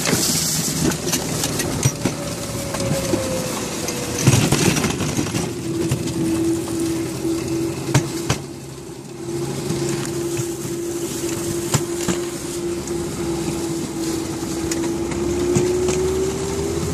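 A homemade electric railkart with two 500 W motors rolling along old railroad track. A steady electric motor whine, rising in pitch near the end, runs over the rumble of steel wheels on the rails, with a few sharp clacks from the wheels.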